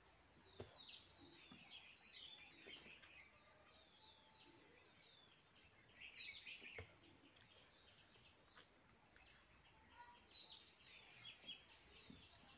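Faint birds chirping in several bursts of quick, high calls, with a few short soft clicks in between.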